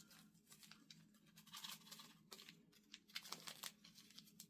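Faint rustling and light scratching as a small knife pouch is handled and opened, in scattered short bursts over a low steady hum.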